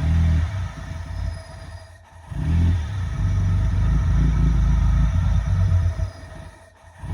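318 cubic-inch V8 idling roughly, its low, uneven running rising and falling in level and dropping away twice.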